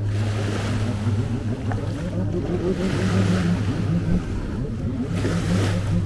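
A steady low engine hum over the wash of waves.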